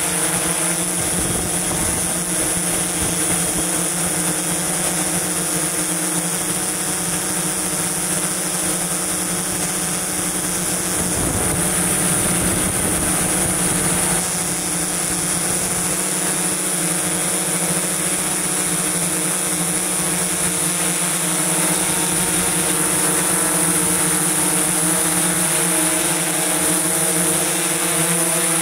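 DJI S1000+ octocopter's rotors humming steadily in flight: a constant layered hum with a high whine above it. The pitch wavers briefly about eleven seconds in.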